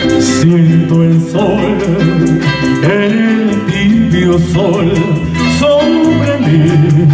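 Male singer singing a Latin American ballad into a microphone over a live band, with electric bass and guitar playing along.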